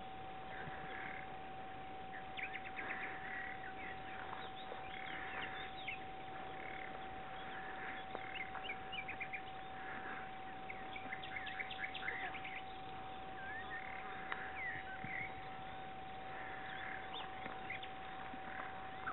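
Small birds chirping and trilling in scattered bursts, over a steady high-pitched tone that runs without change.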